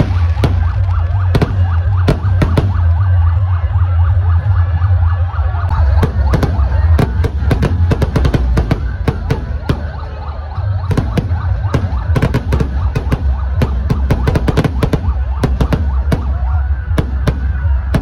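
Aerial fireworks going off overhead: many sharp bangs and crackles, coming thick and fast from about six seconds in, over a steady low rumble and a wavering, siren-like whistle.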